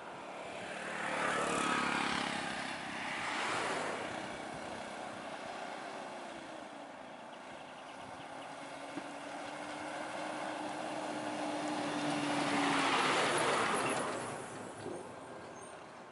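Road traffic creeping past close by: a diesel truck's engine and tyres rolling slowly by, with a steady engine note in the middle. The noise swells as vehicles pass, twice near the start and loudest again about three-quarters of the way through.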